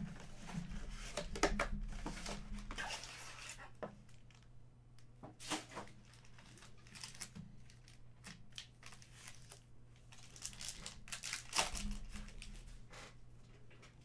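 Cardboard mega box of trading cards being torn open by hand, then its foil card packs crinkling and tearing as they are handled and opened, in irregular rustling bursts.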